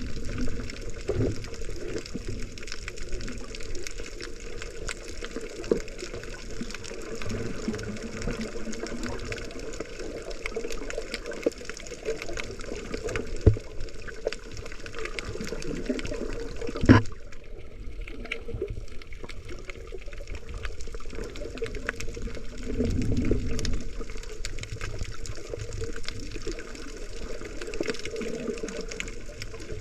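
Muffled water sloshing and rushing heard through a GoPro's waterproof housing while snorkeling. A few sharp knocks sound over it; the loudest comes a little past halfway.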